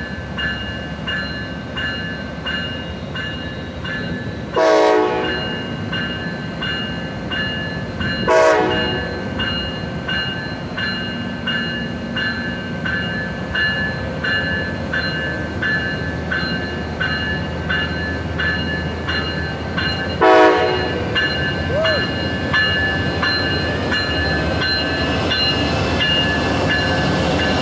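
Amtrak passenger train led by a Siemens SC-44 Charger locomotive running by with a steady rumble, its horn giving three short blasts: about five seconds in, about eight seconds in, and about twenty seconds in.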